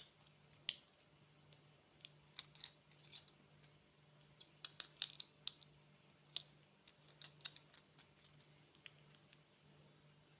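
Plastic candy packaging being handled and opened: scattered sharp clicks and crinkles in irregular clusters, busiest around the middle.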